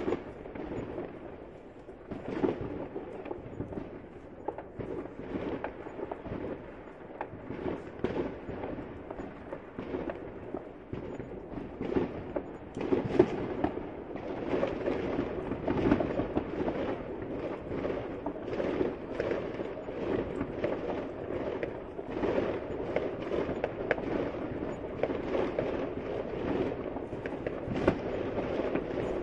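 Fireworks going off in a dense, continuous string of pops, cracks and bangs over a steady rumble, growing thicker and louder about halfway through.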